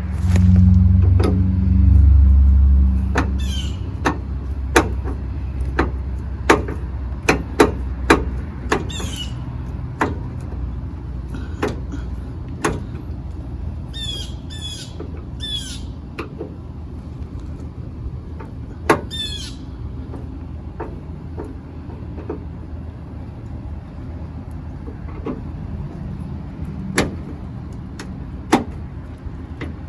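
Clicks, taps and knocks of hand tools working on a pickup's door panel while screws are being taken out, with a few short high squeaks. A low rumble runs underneath and is loudest in the first few seconds.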